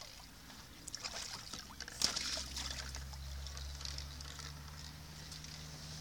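Shallow water in a plastic kiddie pool splashing and trickling as a toddler moves her hands and toys through it, with a sharper splash about two seconds in. From shortly after that a steady low motor hum runs underneath.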